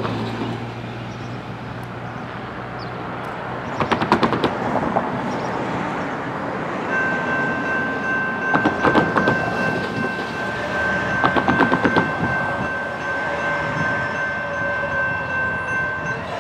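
Distant approaching freight train led by a GE Dash 9 diesel locomotive: a steady rumble, with a steady high ringing tone from about seven seconds in. Three short bursts of rapid clicking rise above it and are the loudest sounds.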